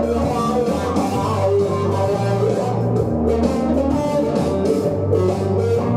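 Sunburst Les Paul-style electric guitar with humbucker pickups, picked and played through an amplifier: a run of single melodic notes over repeated low notes.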